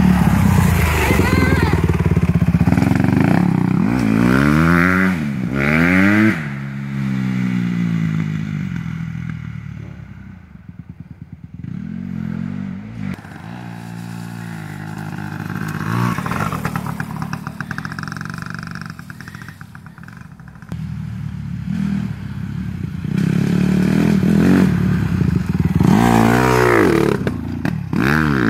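Small dirt-bike engines, a Honda CRF150R four-stroke single and a Yamaha PW80 two-stroke, revving and riding past. The engine note rises and falls as a bike passes close in the first few seconds, drops to a distant drone around ten seconds in, then builds again and sweeps past near the end.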